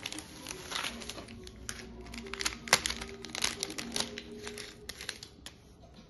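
Plastic bubble wrap and a small plastic packet crinkling and crackling as they are handled, with one sharp crackle a little under three seconds in. The crackling thins out near the end.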